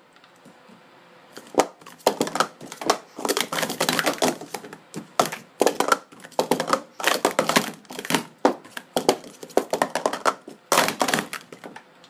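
Speed Stacks Pro Series 2 plastic sport-stacking cups clattering in a rapid stacking cycle, upstacked into pyramids and downstacked again on the mat. It is a dense run of quick plastic clicks and knocks that starts about a second and a half in and stops just before the end.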